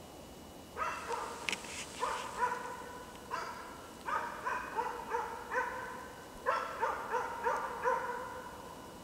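Hunting dog's bay barking (ståndskall): a long run of sharp barks, two to three a second, broken by two short pauses. This is the steady barking a hunting dog gives to hold found game at bay and call the hunter to it.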